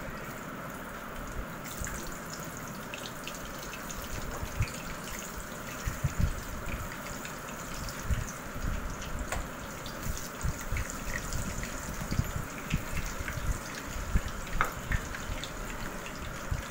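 Beef kabab patties deep-frying in hot oil in a frying pan: a steady sizzle with many small pops and crackles, getting busier from about six seconds in.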